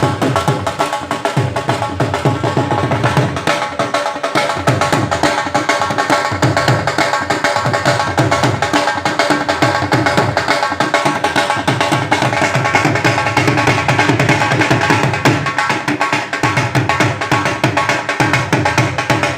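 Music with fast, steady drum percussion over sustained melodic tones.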